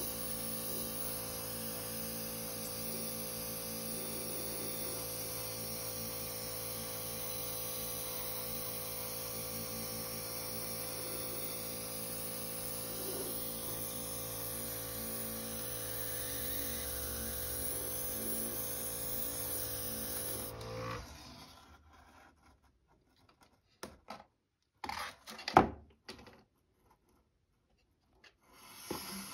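Airbrush spraying gloss paint: a steady hiss of air over the even hum of its compressor, which stops suddenly about three-quarters of the way through. After that come a few sharp knocks and rubs as the plastic model is handled.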